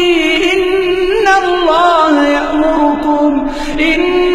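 A man's melodic Quran recitation: one long, ornamented vocal line whose pitch wavers and turns, with a short breath a little over three seconds in.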